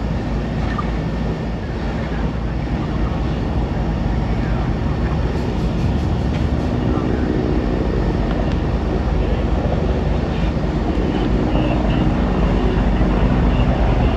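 Fire engines running steadily at the scene, their diesel engines driving the pumps that feed the hose lines, with a humming engine tone joining about five seconds in and fading near the end.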